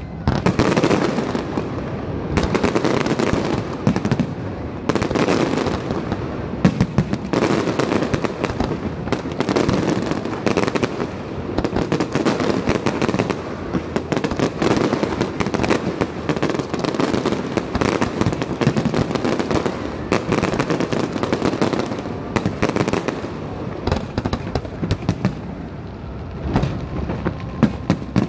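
Aerial firework shells bursting in a dense, unbroken barrage: many bangs and sharp crackles overlapping, several a second.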